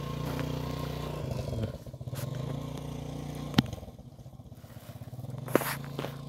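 Motorcycle sidecar cart (saleng) engine running steadily, its note dropping and fading out about two seconds in. Faint scuffing follows, with two sharp clicks about two seconds apart.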